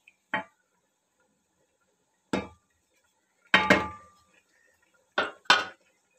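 Cooking spoon knocking against a steel cooking pot as rice is stirred in its water: six sharp metallic clanks, two of them in quick pairs, one ringing briefly.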